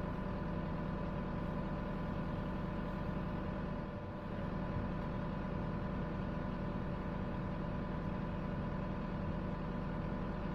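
Diesel engine of a piece of heavy equipment idling steadily, with a brief slight dip in level about four seconds in.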